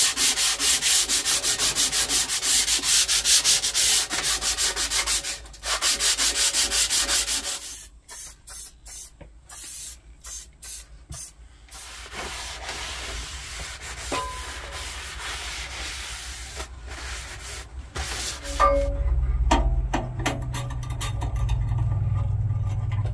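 The rusty table of a Clarke Woodworker scroll saw is scrubbed by hand in rapid back-and-forth strokes. The rubbing is loud for the first several seconds, then turns into lighter, broken strokes. About three-quarters of the way in, a low steady hum begins as the scroll saw's motor is switched on to test that it still works.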